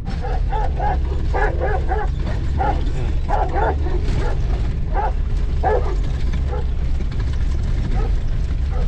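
Large shepherd dogs barking in a quick run of short barks beside the vehicle, thinning out after about six seconds. Under them runs the steady low drone of the G-class's 3-litre diesel engine.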